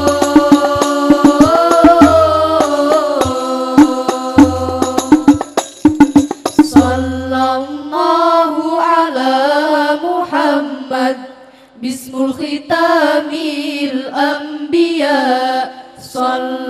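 Al-Banjari hadrah music: voices singing a sholawat over rapid frame-drum strikes and deep bass-drum beats. The drumming stops about eight seconds in and the singing carries on without percussion.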